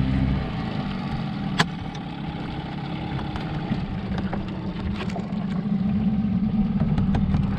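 Outboard boat motor running; its note drops about half a second in and then holds steady. One sharp knock about a second and a half in.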